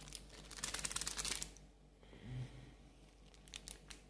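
Plastic seasoning sachet of instant noodles crinkling and tearing open, a rapid crackle lasting about a second, followed by a few faint rustles and clicks.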